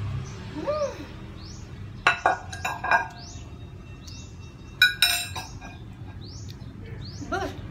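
Metal spoon clinking and scraping against a ceramic plate, several sharp ringing clinks about two to three seconds in and again about five seconds in. A small bird chirps over and over in the background, a short rising chirp less than a second apart.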